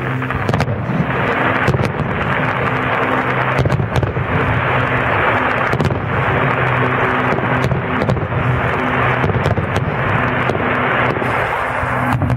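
Aerial fireworks shells bursting in quick succession: a continuous barrage of bangs and crackling sparks, with a steady low hum underneath.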